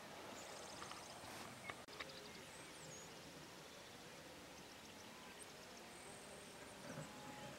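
Faint open-country ambience: a low steady hiss with thin, high-pitched songbird trills and chirps, and a brief dropout about two seconds in.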